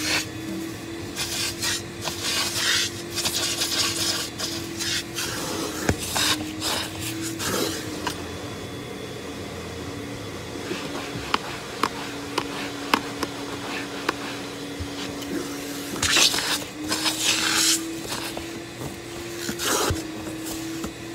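Upholstery hot-water extractor running with a steady vacuum-motor hum whose pitch drifts a little as the load changes. Several loud rushing, hissing passes come as the clear upholstery tool is drawn across the fabric seat, sucking out water and dirt, with scattered clicks of the tool against the seat.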